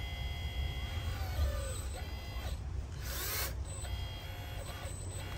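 Hydraulic pump and actuators of a 1/16-scale Double E Volvo 160E RC excavator converted to hydraulics, whining in pitches that rise, fall and cut in and out as the arm and slew move, over a steady low hum. A short hiss comes about three seconds in.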